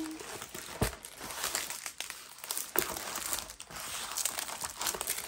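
Crinkling and rustling of a rolled diamond painting canvas and its paper wrapping being unrolled by hand. There is a soft thump about a second in.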